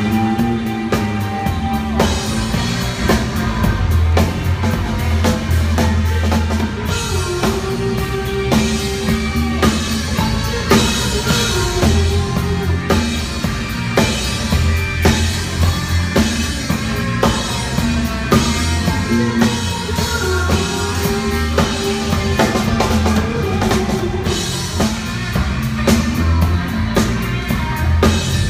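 A live rock band playing, led by a busy drum kit with kick, snare and cymbals, over electric guitars and electric bass.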